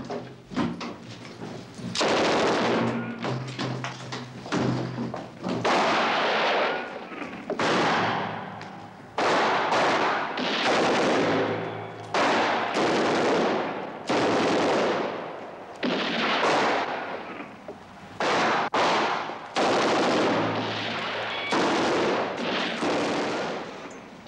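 Submachine-gun fire: about a dozen bursts of automatic fire, each about a second long and trailing off in an echo, one after another every one to two seconds.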